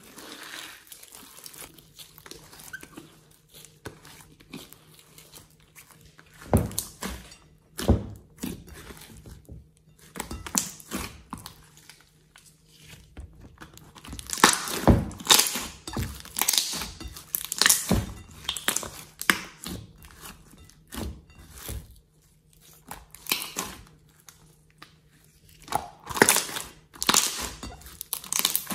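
Hands kneading and pressing a thick mass of slime in a glass bowl: irregular wet squelches with sharp crackling pops of trapped air, densest around the middle and again near the end.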